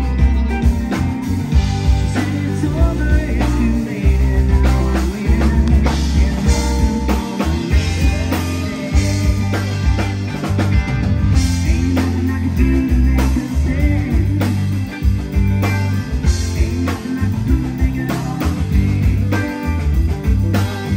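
Live rock band playing loudly: electric guitars, keyboard and drum kit.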